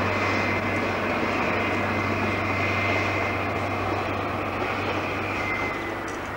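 InterCity 125 high-speed diesel train running past at speed and drawing away. The engine note and rail noise carry a high steady whistle that drops slightly in pitch near the end, and the whole sound fades gradually.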